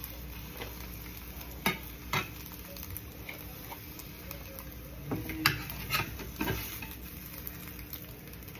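Metal spatula scraping and tapping in a non-stick skillet while fried eggs are lifted out onto a plate, with a few sharp clicks; the loudest is about five and a half seconds in. Under it the pan sizzles faintly.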